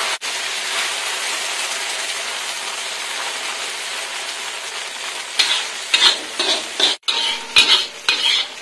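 Beaten egg frying in hot oil in a pan, a steady loud sizzle. From about five seconds in, a run of short scraping strokes: the egg being stirred and turned against the pan.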